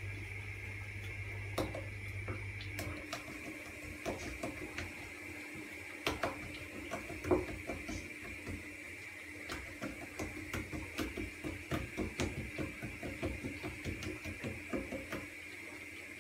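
Fingers patting and pressing soft yeast dough flat on a wooden board: a run of soft, irregular pats that starts about three seconds in and comes quicker and more even toward the end.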